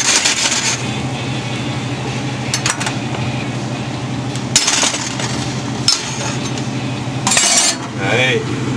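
A metal utensil scraping and clinking against a stainless steel pot while flour and butter are worked into a roux, in three short bursts, over a steady low hum.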